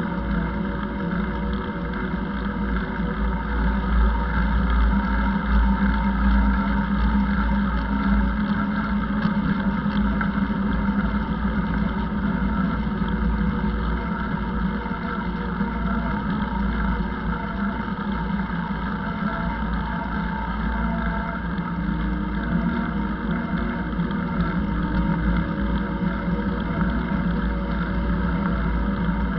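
Steady wind rumble and rolling noise picked up by a moving action camera's microphone while cycling, with a constant low hum and no break.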